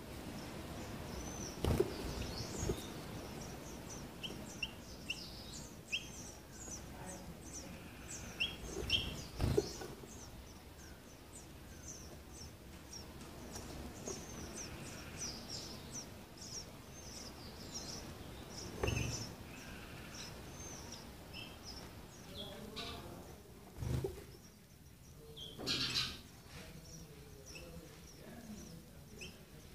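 Sparrows chirping: a steady run of short, high chirps, interrupted by several sudden knocks that are louder than the birds.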